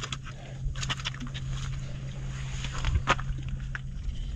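Steady low hum of a distant boat motor on the river, dropping away near the end. Over it come scattered scuffs and knocks from walking on the rock ledge, with a sharper knock about three seconds in.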